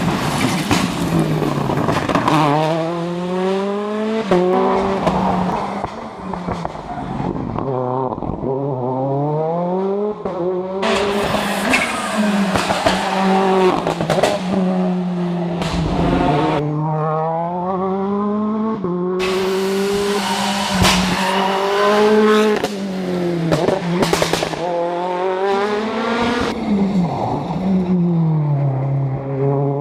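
Toyota Yaris WRC rally car's turbocharged 1.6-litre four-cylinder engine driven hard: the pitch climbs and drops again and again through gearshifts and lifts. Louder, hissier stretches come in twice as the car goes by at speed, with tyre noise.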